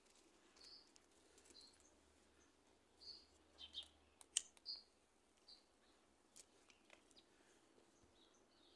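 Faint, quiet outdoor ambience with small birds giving short, high chirps every second or so. A few sharp clicks come through, the loudest about four and a half seconds in.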